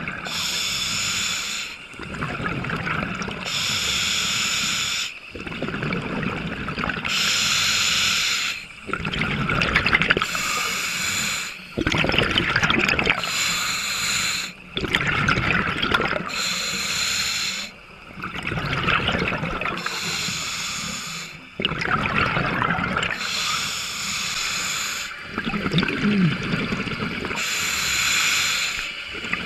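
Scuba breathing through a regulator underwater: hissing inhales alternate with bubbling, gurgling exhales, a full breath every few seconds.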